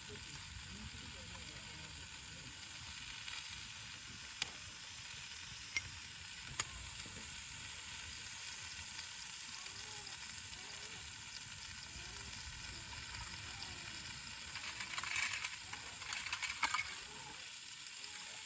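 Food sizzling in a frying pan with a steady hiss. There are a few sharp pops in the first half, and louder crackling and spitting a couple of seconds before the end.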